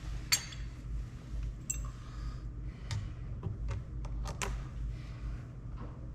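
Small metal hardware, such as fender washers and the chrome bezel, clinking and clicking as it is handled and set in place: about half a dozen sharp clicks, one with a brief metallic ring, over a steady low hum.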